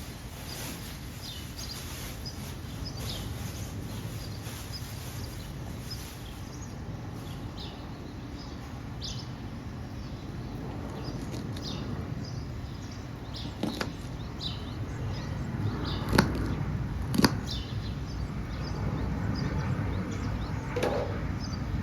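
Small birds chirping now and then over a steady low outdoor background hum, with a few sharp knocks or clicks about two-thirds of the way through.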